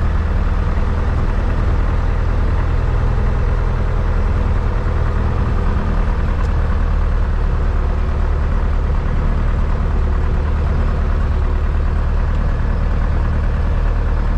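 Single-engine light aircraft's piston engine and propeller idling steadily just after start, heard from inside the cockpit.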